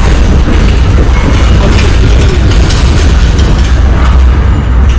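Simulated earthquake in a museum earthquake simulation theatre: a loud, continuous deep rumble with rattling and clattering over it.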